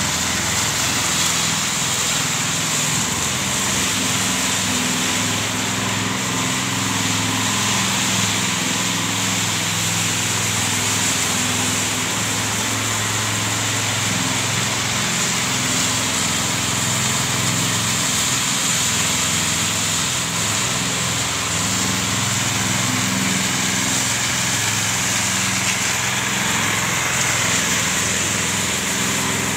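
Walk-behind power trowel's small petrol engine running steadily while its rotating blades smooth a fresh concrete slab.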